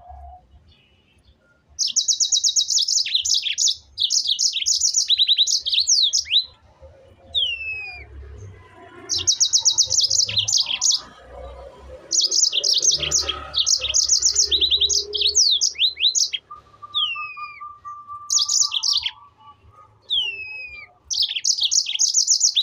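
A songbird singing repeated phrases of fast, high trills, each a few seconds long. Single down-slurred whistles fall between the phrases.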